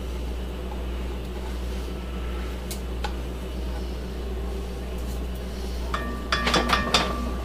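A steady low hum, then near the end a quick run of metallic clinks and scrapes with a slight ring as a spoon scrapes condensed milk out of an open tin can into a cast iron pot.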